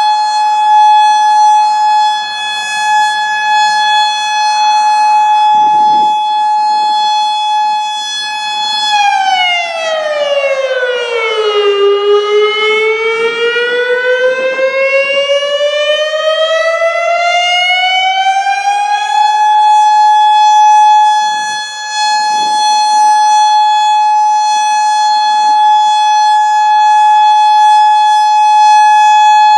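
Federal Signal Modulator 6048 electronic siren sounding a loud, steady high tone. About nine seconds in, its pitch drops to roughly half, then slowly rises back to the same steady tone. A fainter, lower siren tone from farther away is heard beneath it at times.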